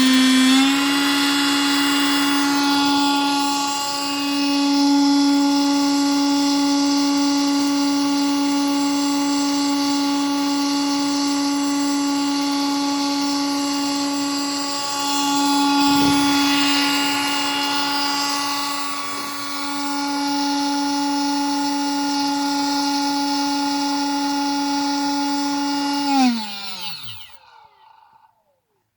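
Homemade vacuum cleaner driven by a brushless quadcopter motor, running at full speed with a loud, steady, high-pitched whine rich in overtones. Its level dips briefly a few times and there is a single knock about halfway through; near the end the motor spins down, its pitch falling, and stops.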